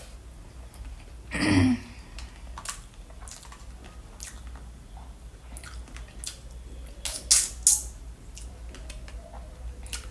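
A person eating fruit close to the microphone, with wet chewing and biting clicks. A louder short sound with a falling pitch comes about one and a half seconds in, and two sharp clicks come a little past seven seconds.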